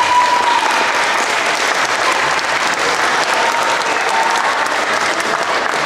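Audience clapping: steady applause.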